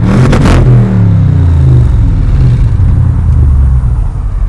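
Audi RS6 engine, exhaust centre resonator replaced by straight pipes, heard from inside the car: the revs fall back from a throttle blip and settle to a steady idle over the first three seconds.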